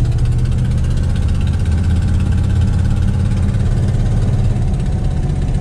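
1969 Dodge Dart's engine and exhaust running steadily while driving at low speed, heard from inside the cabin as a loud, low-pitched drone. A sound that one rider likens to an old Rumely tractor, which the owner says he has to fix.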